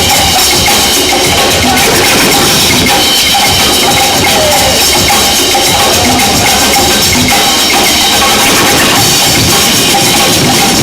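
Loud music with a percussive beat of drums and wood-block-like knocks, played over a sound system for a breakdance battle.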